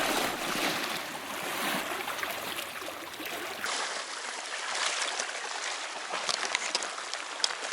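Seawater washing and trickling over shoreline rocks, a steady wash of noise, with a few light clicks in the second half.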